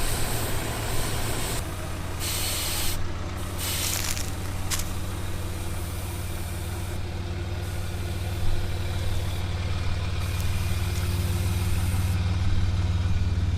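Toyota LandCruiser V8 turbo-diesel idling steadily, with several short bursts of hissing air in the first five seconds, as the tyres are let down for a rough gravel track.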